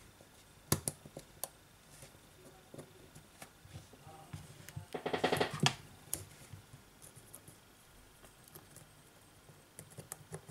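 Small sharp clicks and taps of hands and tweezers on a smartphone's internal parts while its lower charging-port board is refitted, a cluster of them about a second in and more near the end. About five seconds in comes a brief pitched buzz, under a second long, the loudest sound here.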